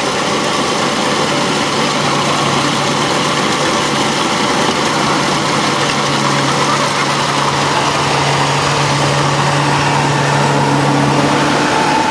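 Kubota DC-105X rice combine harvester running steadily at working speed while it cuts rice, its diesel engine and threshing machinery making a loud, even noise over a constant low hum.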